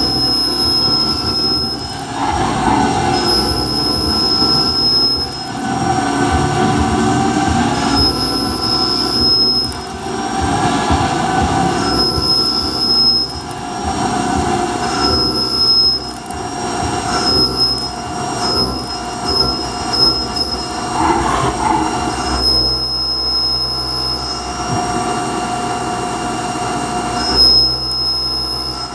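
Haas VF3 CNC vertical mill's end mill cutting 1018 cold-rolled steel. A high-pitched squealing whine comes and goes every two to four seconds over the steady running of the machine.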